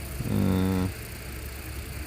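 A short, low voiced sound lasting under a second, a little after the start, over the steady running of an idling engine.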